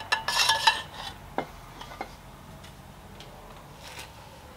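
Socket and long extension bar clinking and rattling against a bolt under a car, with metal ringing briefly, then two sharp clicks and a few faint ticks.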